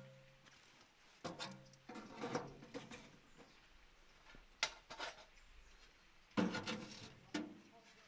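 Intermittent clinks and knocks of metal parts being handled as a gas camping stove and smoke-dust tray are fitted into the base of a wooden smoking cabinet, with one sharper click about halfway through.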